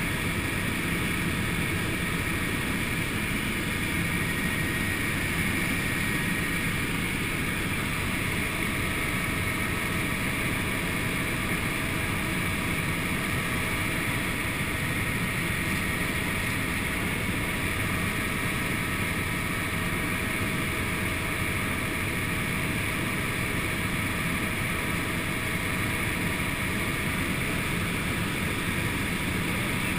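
Helicopter in flight, heard from inside the cockpit: a steady drone of engine and rotor with a hiss of airflow, and a faint high whine that fades out about seven seconds in.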